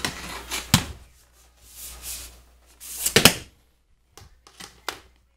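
Hard plastic clunks, clicks and scraping as a Dyson DC14 vacuum's handle, wand and hose are handled, with the vacuum switched off. The loudest knock comes about three seconds in, with sharper clicks just before one second and near the end.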